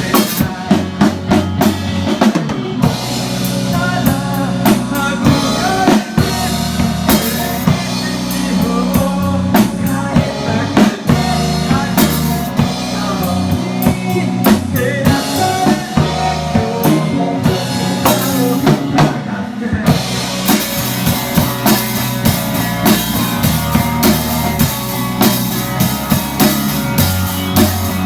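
A band playing, with the drum kit loud and close: kick and snare hits and cymbals over bass and sustained chords.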